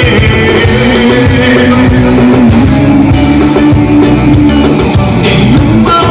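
Loud live band music with drums and a long held lead note that steps up in pitch about halfway through; no vocal line.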